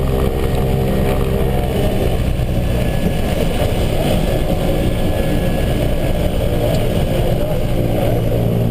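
Twin-engine propeller airplane's engines and propellers running, heard inside the cockpit while it moves on the ground. The steady drone turns rougher and busier about two seconds in, then settles into its even tone again near the end.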